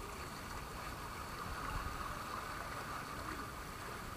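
Steady rush of water flowing down an open water slide.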